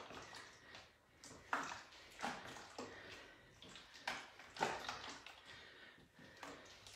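Faint footfalls and shuffles on a hard floor during reverse lunges: short knocks in pairs as each foot steps back and returns.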